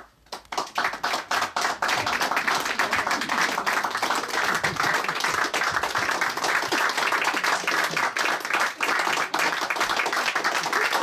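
Audience applause: a few scattered claps at first, swelling within about two seconds into steady, full clapping.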